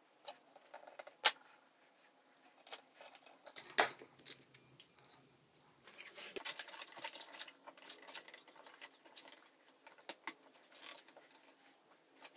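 Small brass lamp fittings clinking and clicking as they are handled and fitted together by hand: irregular light metallic clicks and rattles, with sharper knocks about a second in and near four seconds.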